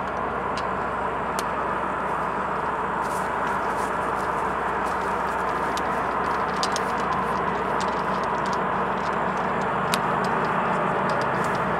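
Distant freight train rolling along the valley line, a steady rumble of the wagons on the rails, with a few light ticks and one sharper click about ten seconds in.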